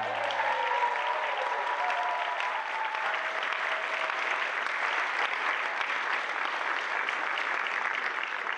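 Audience applauding steadily, with a few voices calling out over the first few seconds as the last note of the music dies away.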